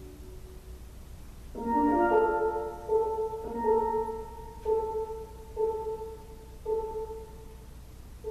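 Double seconds steel pan played with mallets. A chord of several notes is struck about one and a half seconds in. Then a single note is repeated roughly once a second, each stroke ringing and fading.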